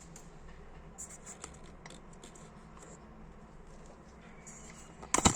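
Small scratching and light ticks of a tiny screwdriver working the screw on a Dupont D-Light lighter, then a short burst of louder sharp clicks near the end.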